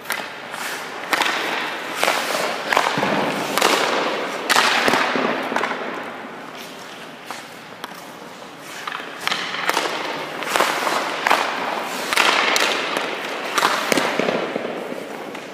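Ice hockey goalie's skates scraping the ice and his pads and stick knocking as he moves through a drill. About a dozen sharp, irregular scrapes and knocks echo in the rink.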